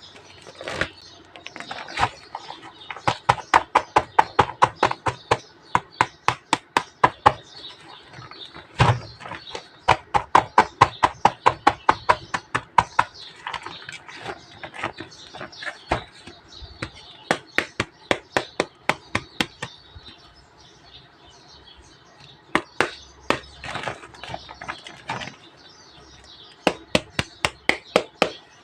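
Quick runs of sharp clicks or taps, about four or five a second, broken by short pauses.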